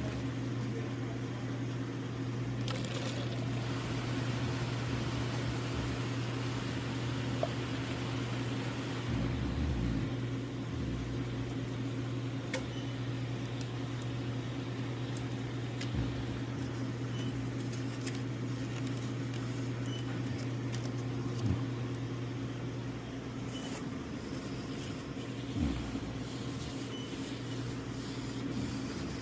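Semi-truck's diesel engine and road noise heard from inside the cab while driving, a steady low drone with a few light knocks and rattles.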